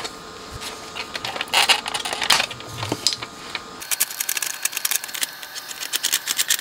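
A few light clicks and scrapes as plastic knobs come off the amplifier's front panel, then from about four seconds in a ratchet nut driver clicking rapidly as it undoes the nuts on the pot shafts.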